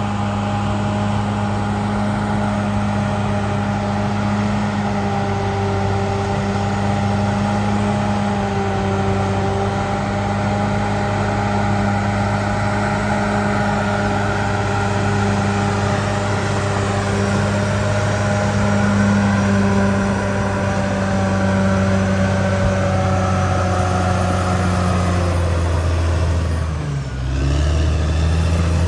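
Caterpillar D6R XL bulldozer's diesel engine running steadily, a deep drone with a higher steady whine over it. Near the end the sound dips briefly and changes pitch.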